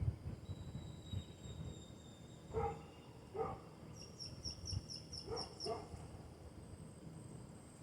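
Wild birds calling: short hoarse falling calls in pairs, twice, and a quick run of about eight high chips partway through, over faint thin steady whistling.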